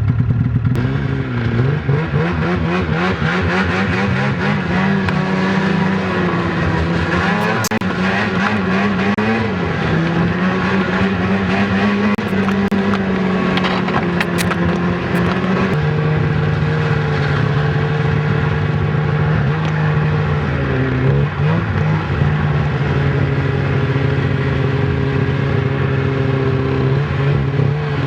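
600 snowmobile engine with two cylinders running on only one, a sick-sounding uneven note. Its pitch holds fairly steady but wavers and dips briefly a few times.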